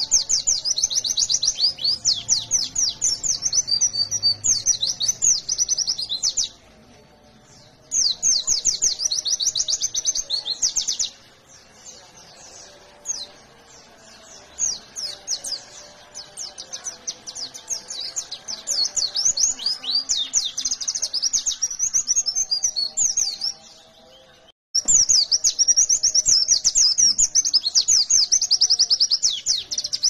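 White-eye (pleci, Zosterops) singing a long, rapid, high twittering song in loud phrases of several seconds, separated by short pauses and softer stretches. The song breaks off in total silence for a moment about three-quarters of the way through, then resumes loud.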